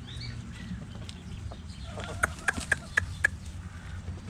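A hen foraging gives a quick run of about five short, sharp clucks a little past the middle, over a steady low background hum.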